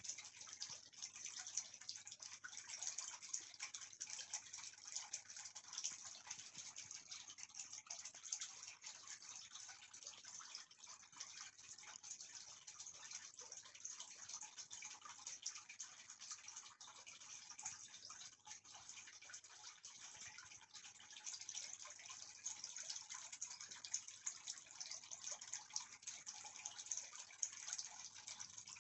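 Faint, steady hissing rush of noise with a slight flickering texture, like running water, with no distinct events.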